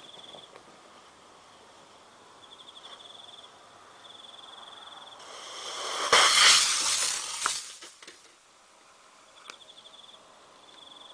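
A small rocket motor on a toy truck ignites and burns: a hiss that builds about five seconds in into a loud rushing burn for a second or two, then cuts off. Crickets chirp in short trains before and after.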